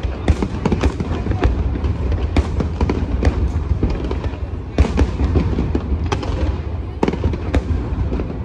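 Aerial fireworks bursting in a continuous barrage: many irregular sharp bangs and crackles over a deep rumble, with one of the loudest bangs just before five seconds in.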